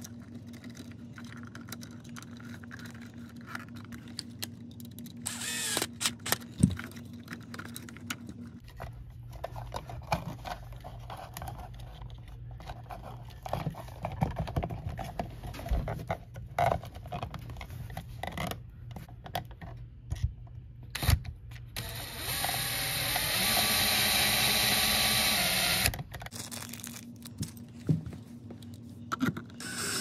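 Hands working stiff house wiring and a plastic smart outlet into a metal wall box, making irregular clicks, knocks and scrapes. About three-quarters of the way through, a cordless drill-driver runs steadily for about four seconds, driving an outlet mounting screw, then cuts off.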